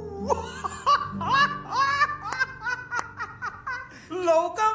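A man laughing loudly in quick repeated 'ha-ha' bursts, about three a second, over background music, turning into longer drawn-out cries near the end.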